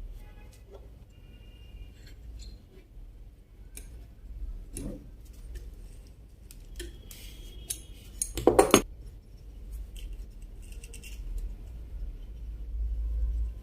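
Metal parts of an electric iron and hand tools clicking and clinking as they are handled, with a louder clatter about eight and a half seconds in, over a low hum.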